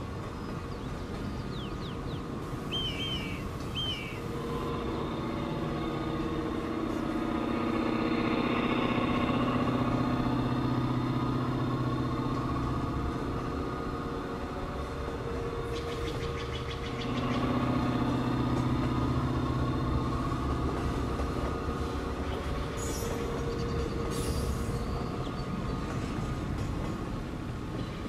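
Diesel locomotive engines running with a steady low drone as a passenger train goes by, swelling about five seconds in and again about seventeen seconds in.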